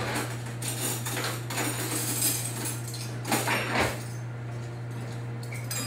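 Rummaging in a kitchen drawer for a fork: cutlery clinking and the drawer sliding, with a couple of louder knocks a little over halfway through.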